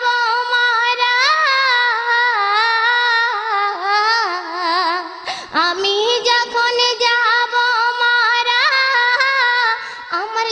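A woman singing a Bengali devotional song, drawing out long wavering notes over the music, with a short break about five seconds in.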